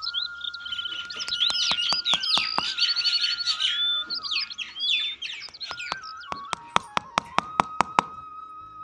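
Small birds chirping and twittering over a thin, whistle-like line of held notes that steps slowly in pitch. Sharp knocks come throughout, with a quick even run of them late on, as a small wooden stake is tapped down into sandy ground.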